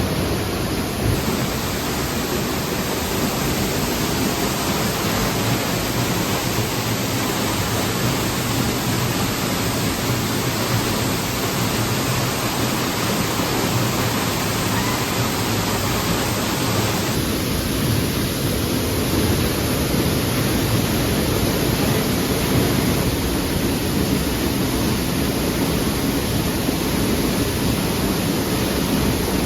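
Waterfall: a steady, loud rush of falling water, its tone shifting slightly about a second in and again a little past halfway.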